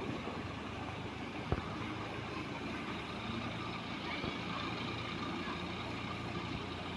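Farm tractor engine running steadily at low revs, with a single sharp click about a second and a half in.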